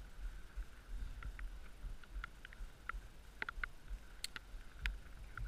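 Dog sled running along a packed-snow trail: a steady low rumble from the runners, with irregular sharp clicks and creaks from the sled and harness, the loudest about four and five seconds in.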